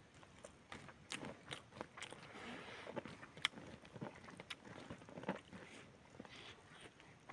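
A man chewing a mouthful of roasted chicken and rice eaten by hand, with scattered soft clicks of wet mouth sounds.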